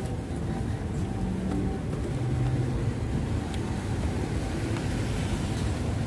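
Steady low rumble of car traffic and running engines.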